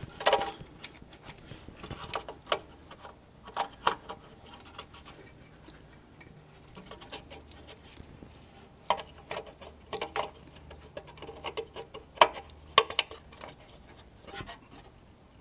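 Irregular clicks, taps and rustles of hands working fog light wiring connectors back together behind a Jeep Wrangler's bumper, close to the microphone; two sharper clicks about half a second apart come near the end.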